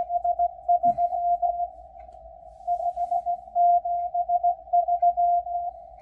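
Morse code (CW) from the Russian M12 numbers station heard through a shortwave receiver: a single mid-pitched beep keyed into dots and dashes over faint static, sending number groups, with a pause of about a second near the middle.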